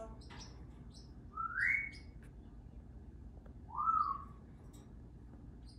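A pet parrot whistling twice, two loud rising whistles about two seconds apart, the second bending back down at its end. Faint, short high chirps of small birds come in between.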